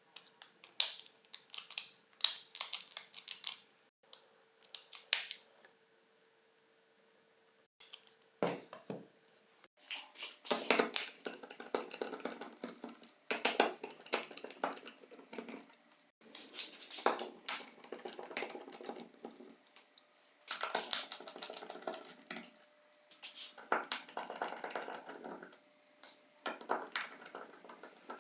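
Small hard parts being handled on a workbench: irregular clicks and knocks, with longer scraping and rattling bursts from about ten seconds in.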